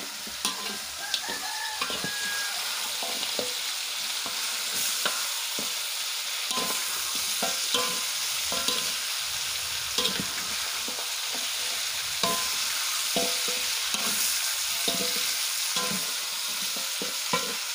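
Chicken pieces sizzling as they fry in a wok. A spatula stirs them, scraping and clicking against the pan at irregular moments.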